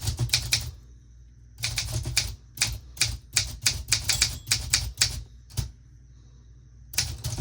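Manual typewriter being typed on: keys striking in quick runs of about five or six a second, with short pauses between the runs.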